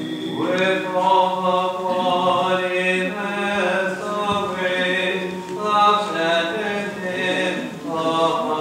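Orthodox liturgical chant: voices singing a melody in long held notes that step up and down over a steady sustained drone note.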